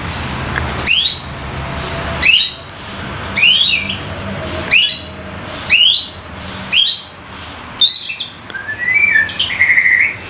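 White-rumped shama (murai batu) calling: seven loud, sharp calls about a second apart, each sweeping down from very high to lower pitch, then a short, lower warbled phrase near the end.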